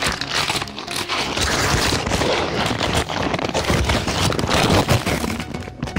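Brown kraft-paper mailing wrap being torn open and crumpled by hand, a dense rustling and crackling full of sharp little snaps.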